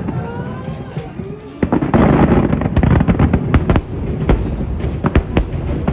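Aerial fireworks shells bursting in rapid succession, many sharp bangs overlapping, thickening into a dense stretch of crackling about two seconds in.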